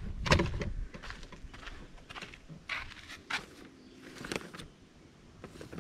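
Footsteps on sandy dirt ground: a series of separate, unevenly spaced steps, roughly one or two a second.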